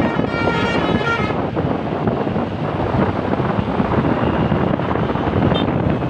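Bus telolet basuri horn playing a stepping multi-tone melody that stops about a second and a half in, followed by the steady noise of the passing bus, with wind on the microphone.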